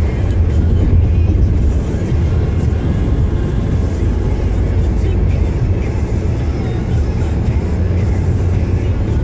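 Steady low road and engine rumble inside the cabin of a moving Toyota car, with music playing along.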